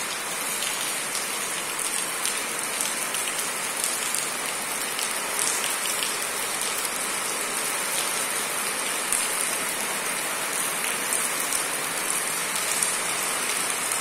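Steady rain falling on sheet-metal roofing and concrete paving, many fine drop ticks over an even hiss, with a stream of runoff from a roof downspout splashing onto the pavement.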